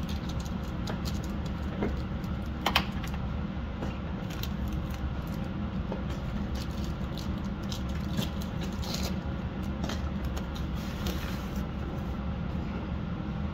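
Foil trading-card pack crinkling as it is torn open, then cards being slid and flipped by hand, in a string of short crisp clicks and rustles with one sharper crack about three seconds in. A steady low hum runs underneath.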